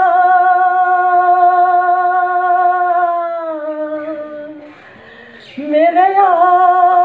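A man singing a Hindi film song unaccompanied. He holds one long steady note for about three and a half seconds, which then sinks in pitch and fades out. After a short breath he starts a new phrase that rises and is held.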